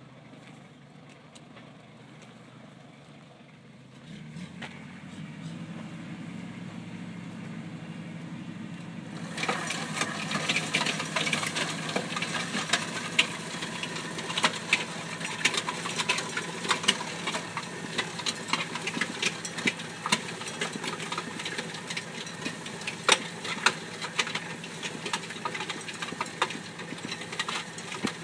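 Engine running steadily while a narrow vineyard mulch spreader is driven down a row. The engine picks up about four seconds in. From about nine seconds a dense rattling with many sharp clicks joins it.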